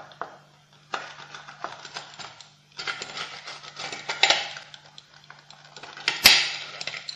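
A metal pizza wheel cutter rolling and pressing through a crisp-bottomed pizza crust in several strokes, crunching and scraping, with a sharp loud click from the blade a little after six seconds in.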